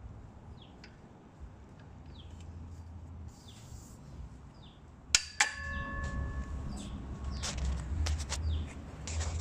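Metal parts of a mitre saw leg stand knocking together: two sharp clanks about five seconds in, the first ringing on briefly like struck steel tube, then a stretch of rattling and clicking as the tubes and frame are handled.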